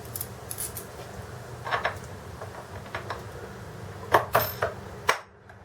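Small steel hardware clinking as bolts and washers are handled and set in place: scattered short metallic clicks, with three in quick succession about four seconds in.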